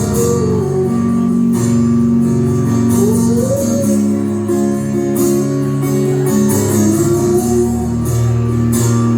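Live rock band playing: guitars over drums with cymbal hits, recorded on a phone in the crowd.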